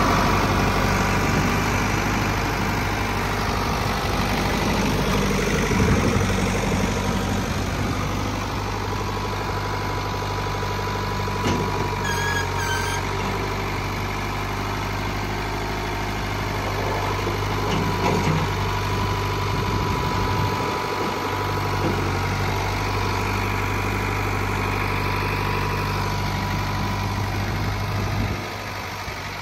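Farm tractor engine running steadily while its front-end loader lowers and raises the bucket on hydraulics. The engine note changes a few times as the loader is worked.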